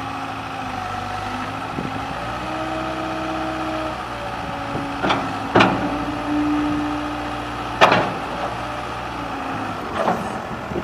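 A John Deere 319D rubber-track skid steer's diesel engine running steadily, its note shifting in pitch a few times. Four sharp clanks about halfway through and near the end.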